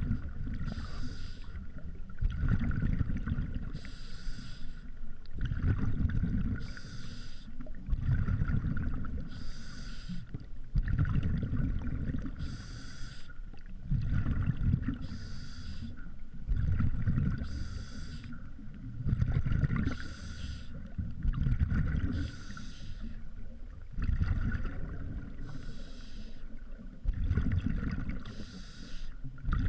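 Scuba diver breathing through a regulator underwater, about one breath every two and a half to three seconds: a short hiss on each inhale, then a low bubbling rumble of exhaled bubbles.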